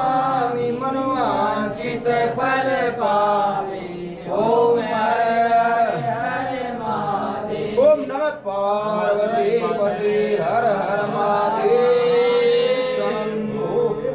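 Voices chanting a Hindu devotional aarti as a sung melody, with a long held note near the end.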